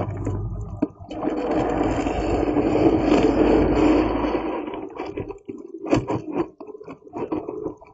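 Honeybees inside the hive: a dense, rustling buzz and scraping for about four seconds, then scattered short clicks and scratches.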